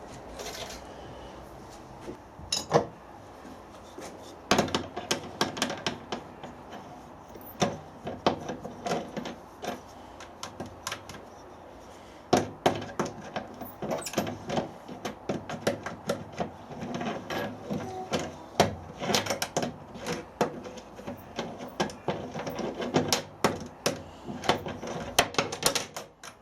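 Irregular metallic clinks, taps and knocks of hand tools and a metal workpiece being handled on a workbench, with a few louder knocks scattered through.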